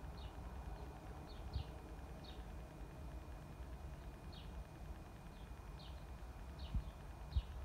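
Outdoor ambience with a bird giving short, sharp, falling chip notes every half second to a second, over a steady low rumble. Two low thumps come near the end.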